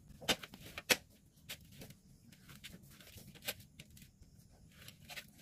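A handful of light clicks and taps from hands working pitha dough and a plastic pitha mould against a steel plate. The loudest tap comes about a second in.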